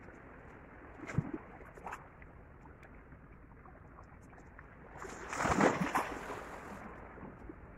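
Small waves washing against rocks at the shoreline, a steady rush, with one louder wave surging and breaking about five seconds in. A couple of faint knocks come near the start.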